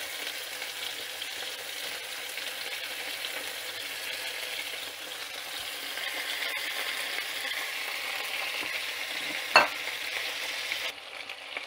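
Chicken drumsticks and pieces sizzling as they fry in hot olive oil in a frying pan. The sizzle grows louder about halfway through as more pieces are laid in. A single brief sharp knock comes shortly before the end.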